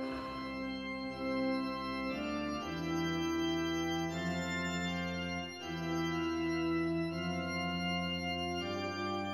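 Organ music: slow, held chords that change every two to three seconds.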